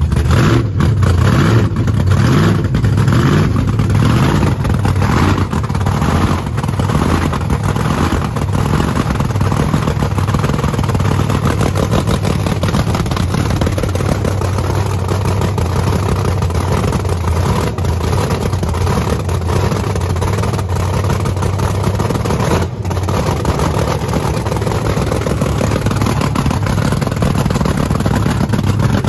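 Supercharged V8 race engine running just after start-up, uneven and choppy for the first several seconds, then settling into a steadier idle.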